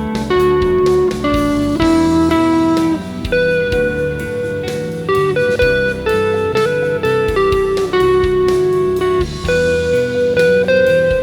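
Electric guitar played through effects pedals, improvising a lead line of held single notes over an ambient rock backing track with drums and bass.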